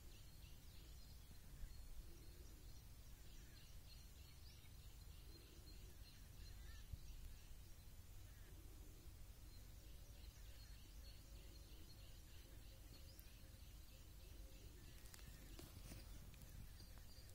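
Near silence: faint outdoor ambience with a low steady rumble and faint, repeated high chirping in the background.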